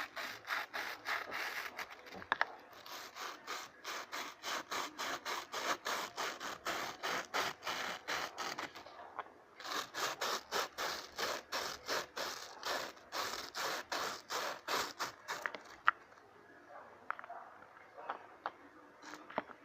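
Glitter being shaken out of its container into the slime mix, in rapid rhythmic scraping strokes about four a second. There are two long runs with a short pause between them, and then a few light clicks.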